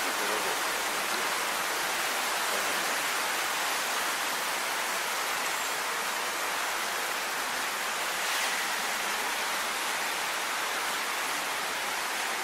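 A steady, even rushing hiss with no distinct sounds standing out.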